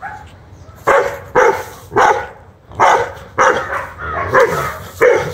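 Young Rottweiler barking in a run of about eight sharp barks, some coming in quick pairs: angry threat barking at a monitor lizard it is confronting.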